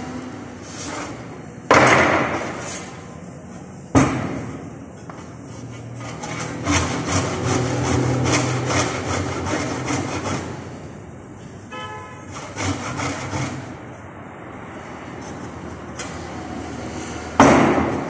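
Wooden planks knocked and shifted on a workbench, with two sharp wooden knocks in the first few seconds and a stretch of quick rubbing strokes in the middle. Near the end a handsaw starts cutting a plank clamped upright.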